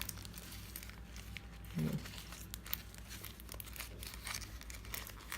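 Packaging crinkling and rustling in the hands with scattered small clicks as a boxed wristwatch is opened, and a brief murmur of a voice about two seconds in.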